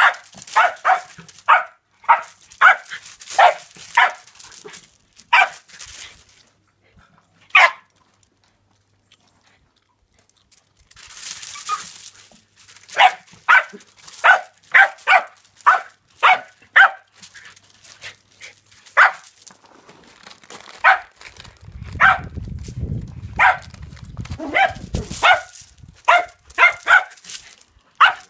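West Highland white terrier barking in quick runs of short, sharp yaps, about two or three a second, with a pause of a few seconds partway through: excited barking at reflected light moving on a wall.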